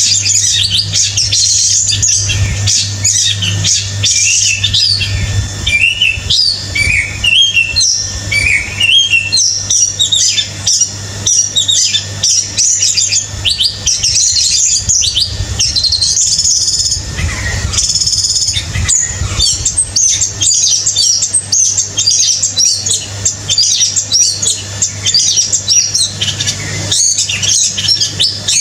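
Small red songbird singing vigorously: a fast, continuous stream of high chirps, short trills and quick gliding notes, over a steady low hum.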